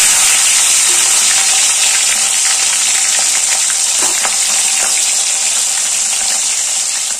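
Hilsa fish heads sizzling loudly in hot mustard oil in a karai, freshly put in, easing off a little toward the end. A metal spatula scrapes the pan a few times as it turns them.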